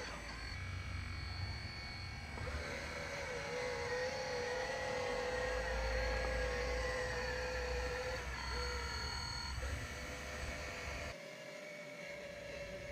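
Electric drive motors and hydraulic pump of a hydraulic RC model bulldozer running with a steady whine. The pitch wavers and dips a few times as the load changes, over a low rumble.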